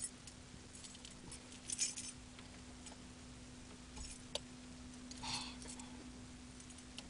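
Faint jingling of a car key ring with a few small clicks and a brief rustle about five seconds in, over a steady low hum.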